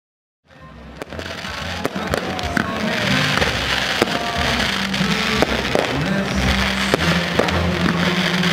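Fireworks display: rockets launching and popping with many sharp cracks, over music with sustained low notes. The sound fades in about half a second in.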